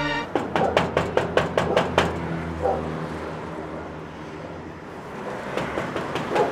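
Rapid knocking on a metal street gate: a quick even run of about ten raps, then a few more knocks near the end, over a low traffic hum.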